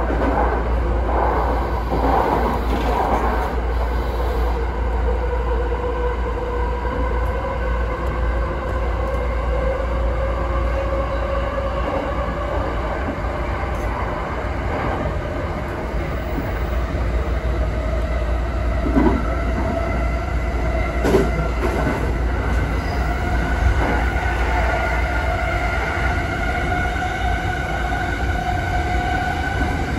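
E217 series electric train running, heard from the front of the leading car: a motor whine of a few tones climbs slowly in pitch as the train gathers speed, over a steady rumble of running. A few short knocks from the wheels on the track come in the second half.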